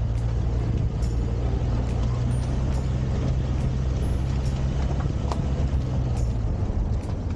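Steady low drone of a motor vehicle driving at a constant speed.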